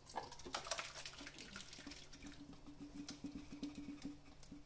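Curdled milk and whey poured from a steel pot onto a straining cloth over a plastic bowl: a splashing pour at first, then a quick run of small liquid plops as the whey drains through.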